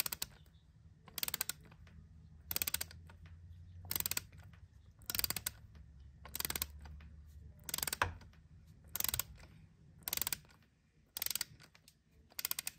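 A torque wrench's ratchet clicking in short runs, about ten back-strokes a little over a second apart, as a new spark plug is run down toward its 12 N·m torque setting.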